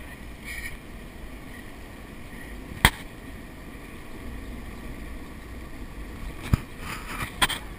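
Stunt scooter rolling on asphalt: a steady rush of wheel and wind noise, with three sharp clacks of the scooter striking the pavement, one about three seconds in and two close together near the end.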